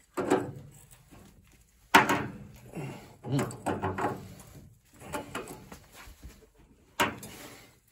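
Tongue-and-groove pliers wrenching at a stuck plastic drain valve on a water heater: sharp clicks and creaks as the jaws bite and slip on the valve, which refuses to turn. The sharpest snaps come right at the start, about two seconds in, and about seven seconds in.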